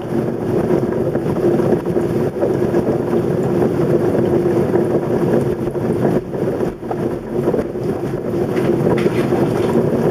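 Thunderstorm wind and heavy rain: a steady, loud rushing, with a steady low hum beneath it.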